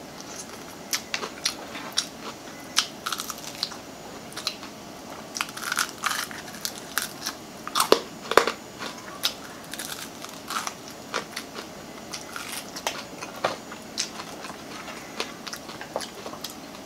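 Crunchy biting and chewing of crispy fried chicken: many sharp crackles of the breaded coating, loudest about eight seconds in.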